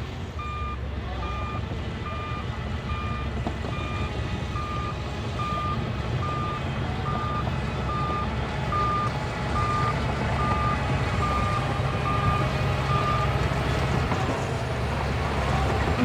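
Bulldozer's reversing alarm beeping at a steady single pitch, a little more than once a second, stopping about three seconds before the end, over the steady rumble of its diesel engine. The engine grows louder in the second half as the machine works.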